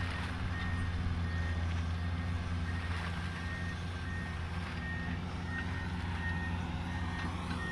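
Komatsu hydraulic excavator's diesel engine running steadily with a low drone, while a backup alarm sounds regular high beeps.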